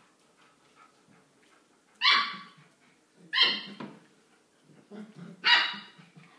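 Five-week-old puppy barking: three short, high yaps a second or two apart.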